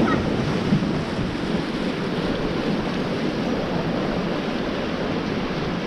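Fast-flowing Beas River white water rushing around a moving raft, a steady, dense rush of water noise, with wind buffeting the microphone.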